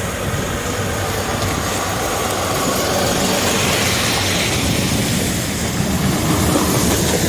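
Heavy logging machinery running: a steady engine hum under dense, continuous mechanical noise.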